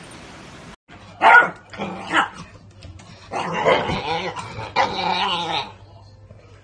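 Beagle puppy barking and growling: two short sharp barks about a second and two seconds in, then two longer runs of rough, growly barking.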